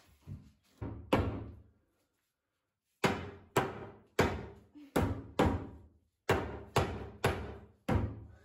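Mallet blows knocking a wooden door frame into place in a brick opening, about a dozen sharp knocks at roughly two a second, in two runs with a short pause after the first three.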